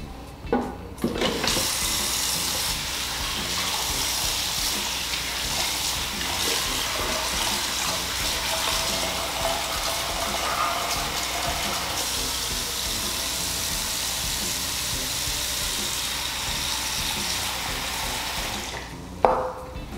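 Kitchen faucet running steadily into a stainless steel sink while soaked salt cod is rinsed under it, shut off just before the end, after a couple of knocks from the pot about a second in.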